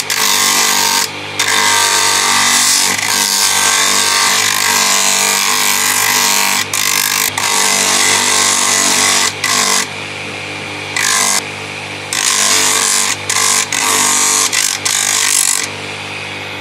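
Electric bench grinder running with a steady hum while a wooden knife handle is pressed against its abrasive wheel to round it off. The loud grinding hiss comes in repeated passes, breaking off briefly whenever the piece is lifted, and falls back to the motor hum alone for a moment in the middle and again near the end.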